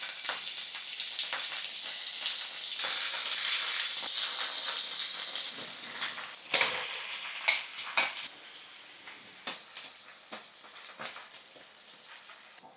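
Paneer cubes frying in hot oil in a pan: a dense, loud sizzle that eases after about six seconds into a quieter sputter with scattered pops and taps.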